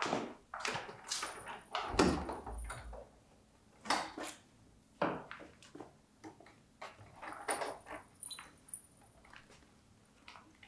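Wooden room door being unlatched and opened: handle and latch clicks and a dull thump about two seconds in, followed by scattered soft knocks and rustles as people move through the doorway.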